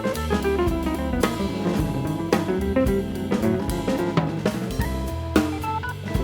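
Background music with a drum kit beat and pitched instrument melody.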